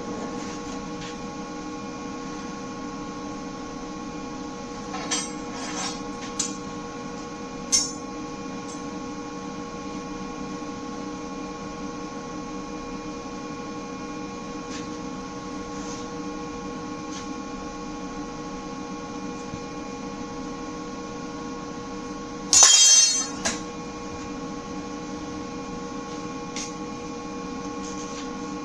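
Steady electrical hum of shop equipment, with a few light clicks around five to eight seconds in and one loud hissing burst lasting about a second near the 23-second mark.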